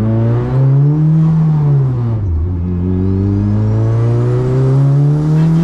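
Turbocharged, engine-swapped Honda Brio accelerating, heard from inside the cabin. The engine note climbs, drops at a gear change about two seconds in, then climbs steadily again through the next gear, with a faint high whine rising along with the revs.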